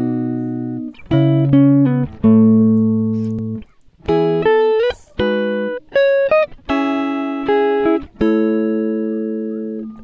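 Background music: plucked chords struck one after another, each left to ring and slowly fade.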